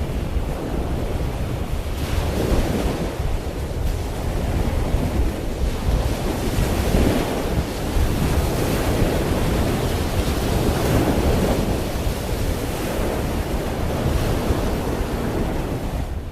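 Ocean waves washing in with wind, a steady rushing that swells and eases every few seconds, with wind buffeting the microphone.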